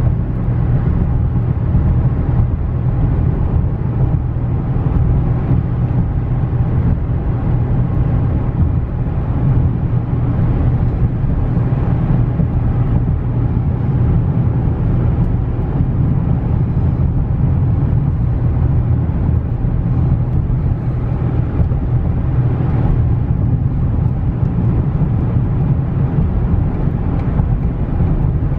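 Steady road and engine noise inside the cab of a 2016 GMC Canyon pickup cruising at highway speed, a constant low rumble.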